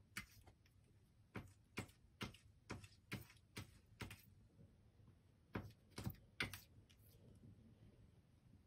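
Faint light taps at about two a second for a few seconds, then three more after a short pause: a cat pawing at a framed picture that leans against the wall.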